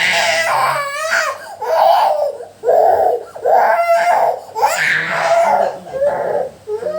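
A small child crying in repeated wailing cries, about one a second, with short catching breaths between them.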